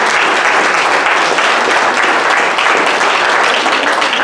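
A church congregation applauding steadily.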